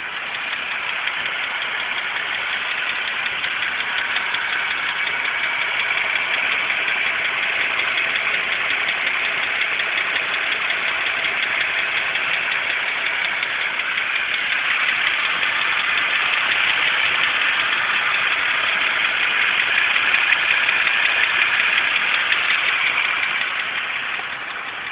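2006 BMW 325xi's engine running with a fast, steady ticking over it: the ticking noise that the owner is trying to track down.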